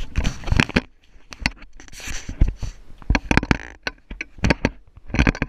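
Irregular clicks, knocks and rustles of handling right at a bike-mounted camera, as a baby's hand and sweatshirt brush and bump against it.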